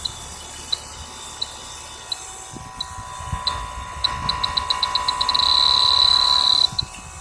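Electronic refrigerant leak detector ticking about one and a half times a second, then ticking faster and faster from about four seconds in until it merges into a steady high-pitched alarm tone, the sign that its sensor is picking up refrigerant; the tone cuts off suddenly near the end.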